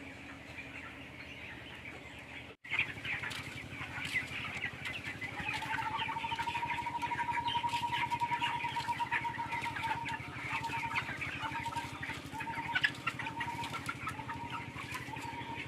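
Flock of 21-day-old broiler chickens in a poultry shed, many birds chirping and chattering at once over a low hum. The sound cuts out briefly about two and a half seconds in. From about five seconds a steady high tone joins in, and near the middle it turns into short repeated pulses a little over one a second.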